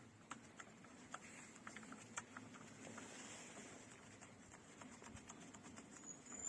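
Faint, scattered light clicks and taps of a screw being fitted by hand into the outboard's lower unit, over near silence.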